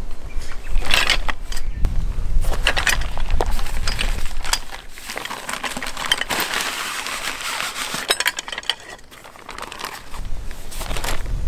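Nylon tent fabric rustling and crinkling as it is handled, then metal tent poles clinking against each other as they are slid out of their bag and laid down, with a quick run of clinks about eight seconds in.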